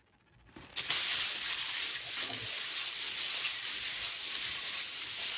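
Hands rummaging through a pile of plastic LEGO bricks: a dense, continuous clatter of small pieces knocking together, starting about half a second in.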